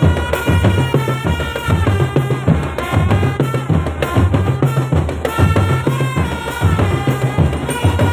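A marching drum band playing: a rapid, steady beat of bass and snare drums under a pitched melody line.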